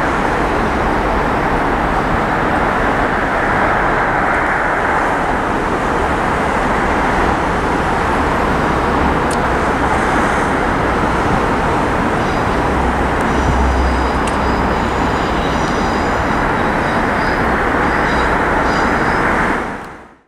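Diesel multiple unit formed of two Class 153s and Class 170 unit 170510 pulling away, a steady loud run of engine and wheel noise with a low rumble. It fades out suddenly near the end.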